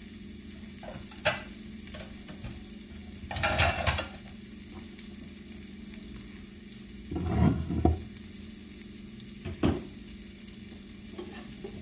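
Sliced onions frying in butter in a frying pan, a steady sizzle, with a few knocks and clatters of kitchen utensils. The loudest knock comes about seven seconds in, as a plate is set down on the wooden board.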